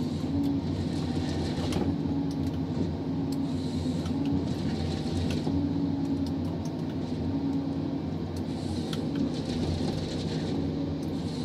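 John Deere 1270G harvester working a tree with its H480 head, heard inside the cab: the diesel engine and hydraulics run steadily while the head saws, feeds and delimbs the stem, with scattered knocks and clicks. A humming tone comes and goes every second or two as the head works.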